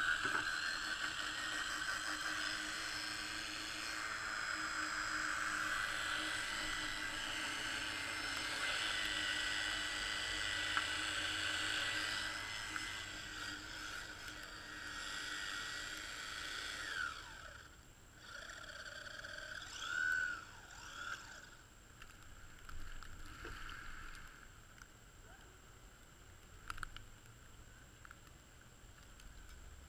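Radio-controlled car's motor running with a high whine while held close, its wheels spinning. About 17 s in the pitch falls and the sound then comes fainter and in spurts as the car drives off across the snow.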